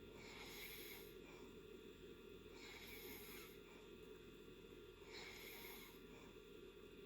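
A person snoring softly in deep sleep: three faint breaths, each about a second long, coming roughly two and a half seconds apart.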